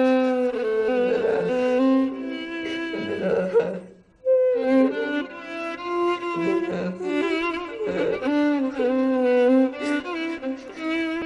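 Dramatic background score: a slow bowed-string melody led by violin over lower held string notes, in two phrases with a brief pause about four seconds in.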